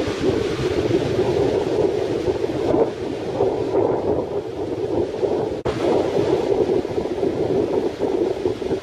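Strong gusty wind buffeting the microphone in an uneven, fluttering rush, over surf breaking on the beach.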